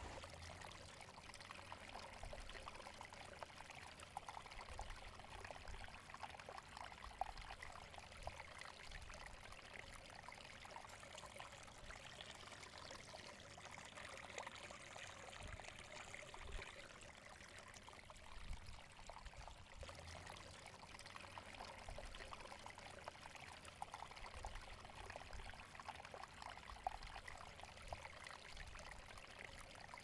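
Faint running water, a steady trickling splash.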